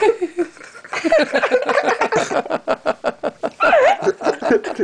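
A woman laughing hard in a long run of rapid, breathy bursts, several a second, with a high gliding squeal near the end.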